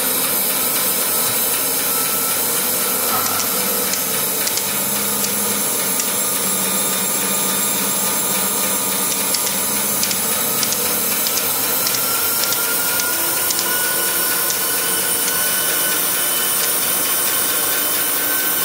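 Tannewitz TR2012VW vertical band saw, with its 3-horsepower three-phase motor, running steadily with a high whine, and a light, irregular clicking from the back side of the blade guard rubbing a little.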